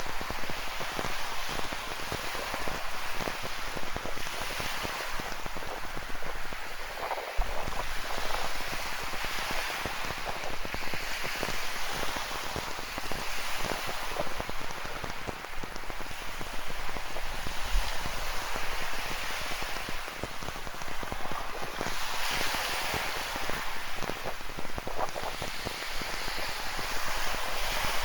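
Rain falling with many fine drop hits, over ocean waves washing onto a rocky shore in slow swells that rise and fall every several seconds. Two brief low bumps, one about a quarter of the way in and one past the middle.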